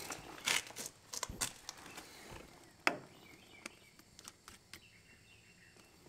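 Scattered light clicks and taps of hands handling tire-inflation gear by the mower wheel. The loudest come about half a second in and near three seconds in, and after that only faint ticks.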